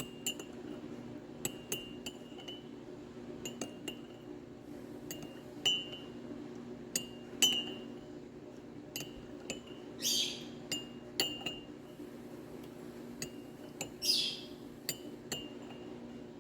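A spoon stirring honey into a cup of hot tea, clinking against the side of the cup at irregular intervals, each tap ringing briefly.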